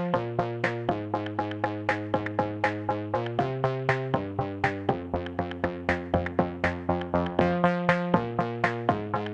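Electronic background music with synthesizer chords over a steady drum-machine beat.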